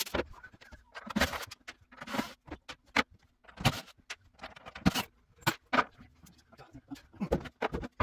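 Irregular knocks, clacks and scrapes of wooden cabinet doors, shelves and hand tools being handled and set down on a countertop.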